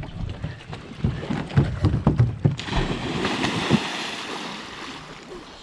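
Several heavy thumps, then a person jumping into lake water: a sudden splash and rush of water that dies away over about two seconds.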